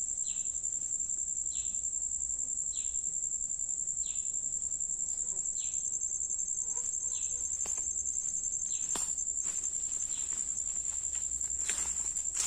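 A steady high-pitched insect drone, cricket- or cicada-like, runs without a break. Over the first two-thirds a short falling note repeats about every second and a quarter. Two sharp clicks come near the end.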